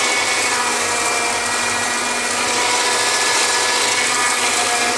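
Tractor engine and Hayes 2.4 m flail mower running steadily while the flail rotor cuts thick, long grass. It is an even mechanical noise with a constant whine on top.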